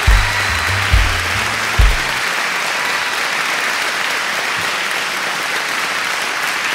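Audience applause, with a short stretch of music that has a bass line and a drum beat. The music stops about two seconds in and the applause carries on.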